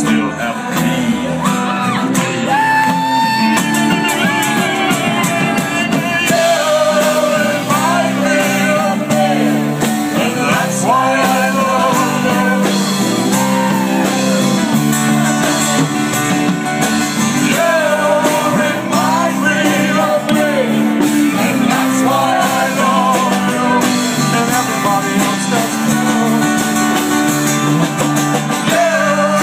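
A live band playing a rock-and-roll song: acoustic guitar strumming under a sung melody line.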